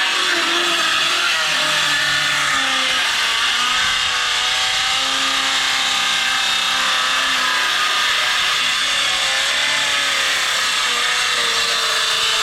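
Electric hand-held power saw cutting lengthwise through a blackwood acacia slab. The motor's pitch wavers up and down as it labours in the cut, a saw the owner calls so underpowered for the job.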